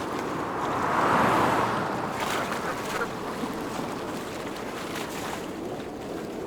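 Steady rushing noise of water and wind, swelling briefly about a second in.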